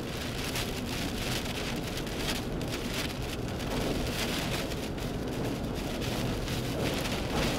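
Wind-driven rain beating against a moving vehicle inside a tornado's circulation, a steady rush of noise with frequent surges.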